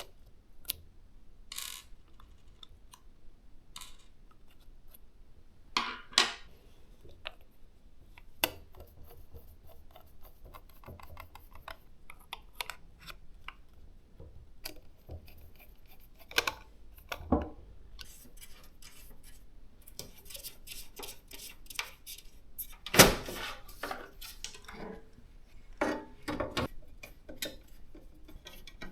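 Hands working on PC parts: scattered plastic and metal clicks, taps and short rustles, with one sharper knock a little after twenty seconds.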